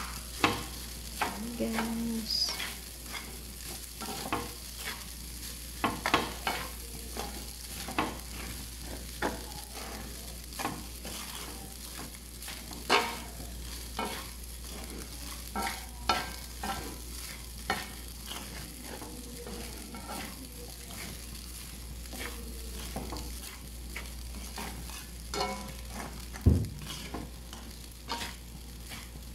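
Garlic fried rice being stirred and tossed in a nonstick wok with a plastic rice paddle and a spatula: irregular scrapes and taps of the utensils against the pan over a faint steady sizzle, with one sharper knock near the end.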